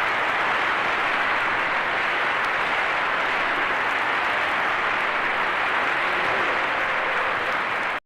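Crowd applause: a dense, steady clapping that cuts off suddenly near the end.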